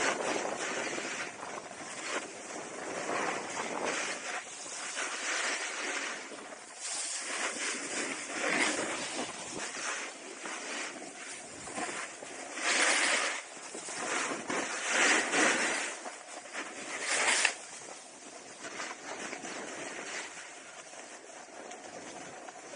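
Skis sliding and carving on groomed snow with wind on the microphone, a steady hiss swelling into louder edge scrapes about every two seconds in the middle of the stretch, then easing off near the end.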